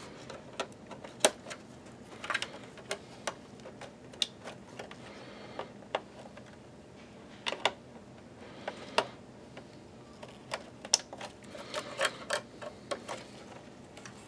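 Scattered, irregular small clicks and taps of plastic connectors and metal parts as gloved hands handle a projector's mainboard and its wiring connectors.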